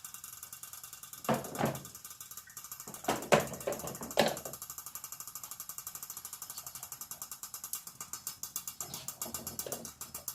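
Rapid, steady mechanical ticking, several ticks a second, with a few louder knocks and clatters of cookware being handled between about one and four seconds in.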